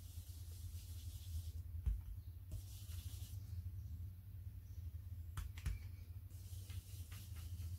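Soft, scratchy brushing as an ink blending brush is dabbed and rubbed over a plastic stencil on card, with a few light taps, over a steady low hum.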